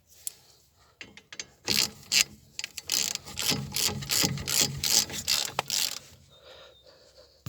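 Ratchet wrench clicking in quick runs as the brake caliper's guide pin bolt is screwed in, starting about two seconds in and stopping about six seconds in.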